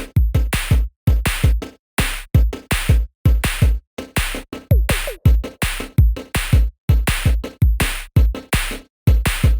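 Background music: an electronic beat of drum-machine hits with deep bass kicks, chopped into short stuttering bursts.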